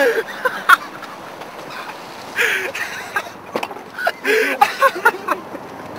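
Indistinct voices over a steady hiss, with a few sharp clicks and knocks, the loudest a little under a second in.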